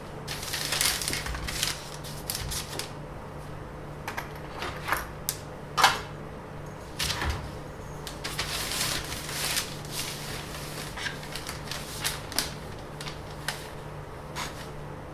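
Handling noise of a flexible ruler being bent and pressed into shape: irregular clicks, taps and rustles, with one sharper, louder click about six seconds in, over a steady low hum.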